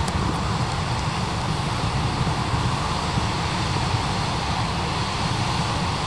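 The Godafoss waterfall's steady rush of falling and churning water, a continuous even noise with a heavy deep rumble.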